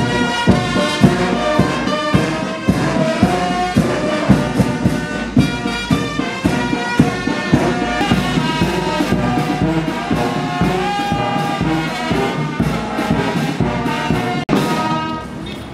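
Military brass band playing a march, brass melody over a steady drum beat of about two strokes a second.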